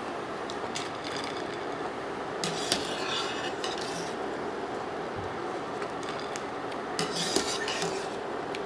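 Metal kitchenware clinking and scraping against a pot a few times, over a steady background hiss.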